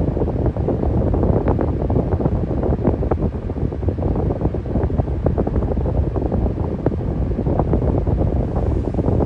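Electric fan running steadily: a low, even rush of air, with its blast buffeting the microphone in quick, uneven flutters.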